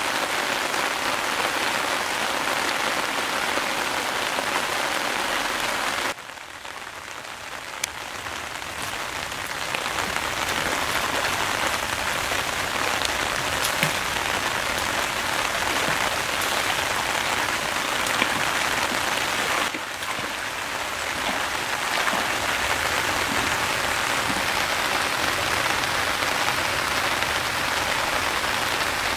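Steady rain falling on leaves and water: an even hiss flecked with small drop ticks. It drops away suddenly about six seconds in, builds back over the next few seconds, and dips briefly again near the twenty-second mark.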